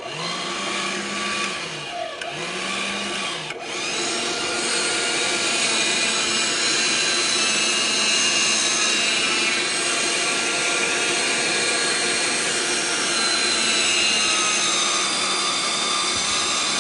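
Waring Pro MG855 electric meat grinder's 450-watt motor switched on and grinding raw meat: a steady whining hum. Its pitch dips briefly twice in the first few seconds, then it runs louder and steadier from about four seconds in.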